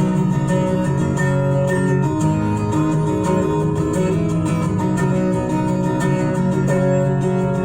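Instrumental break of a pop song: strummed acoustic guitar with band backing, no singing.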